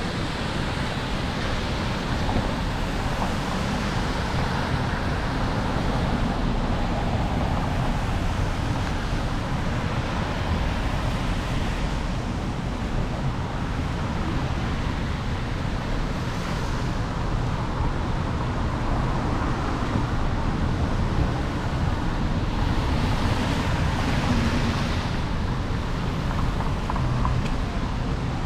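City street traffic on rain-wet pavement: a steady wash of tyre hiss and engines, with cars swishing past about halfway through and again near the end.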